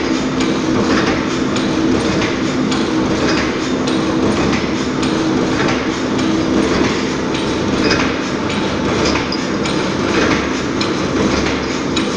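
Hexagonal wire netting machine running: a loud, steady mechanical clatter with many small knocks as it twists the wire and rolls up the mesh, over a low hum that fades after the first few seconds.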